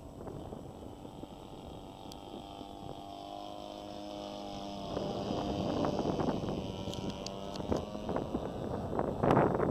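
Two-cylinder petrol engine of a large radio-controlled P-51 Mustang model plane droning in flight, its pitch slowly shifting as it flies past and growing louder. Bursts of wind noise on the microphone come near the end.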